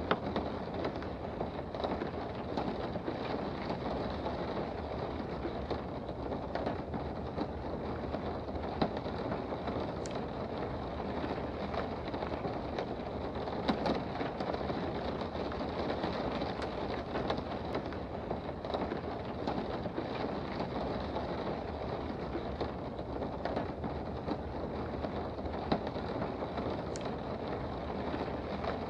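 Steady rain heard from indoors: an even hiss with scattered sharper drop ticks.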